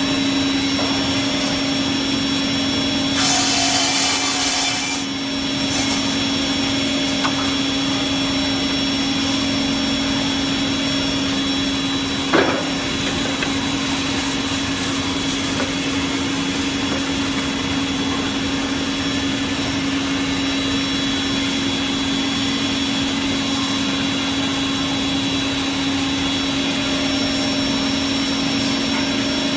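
Woodmaster 1.7 m double-end cut-off saw running steadily with its blades spinning, a constant hum and whine. A short burst of hiss comes about three seconds in, and a single sharp knock about twelve seconds in.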